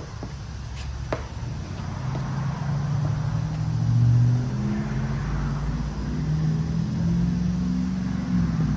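An engine running, its pitch wandering and rising to a brief rev about four seconds in, with a couple of sharp clicks near the start.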